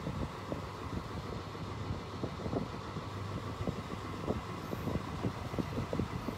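Steady low vehicle rumble with frequent irregular soft knocks.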